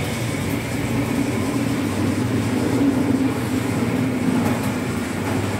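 HO-scale (1:87) model train running on the layout's track, giving a steady rumble of wheels and motor.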